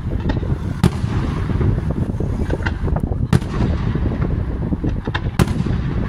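Aerial fireworks display: shells bursting in the sky, with sharp bangs about a second in, at three and a half seconds and at five and a half seconds, and smaller reports between them, over a continuous low rumble of the barrage.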